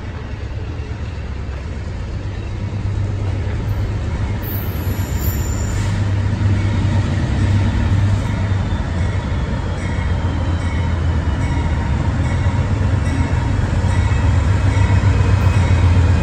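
Amtrak GE Genesis diesel locomotive approaching at low speed, its engine a deep steady rumble that grows steadily louder as it draws near.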